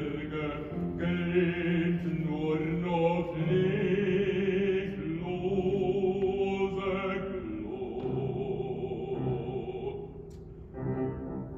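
Operatic tenor singing long held notes with vibrato over piano accompaniment.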